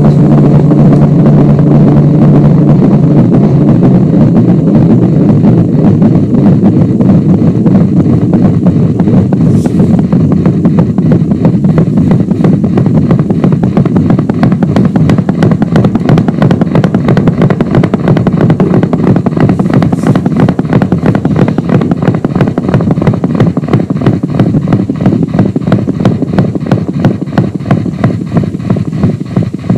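Loud live experimental electronic music: a dense, distorted drone over a fast, even pulse, made with modular analogue and digital gear and looped samples. A low held tone drops out about three seconds in, and the texture thins a little near the end.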